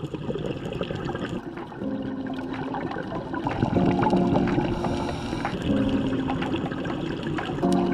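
Water sloshing and trickling, under soft background music with sustained low notes that change every second or two.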